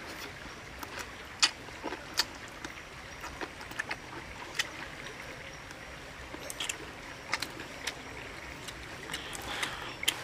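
A person eating roasted chicken by hand: irregular wet clicks and smacks of chewing and lips over a steady low hiss.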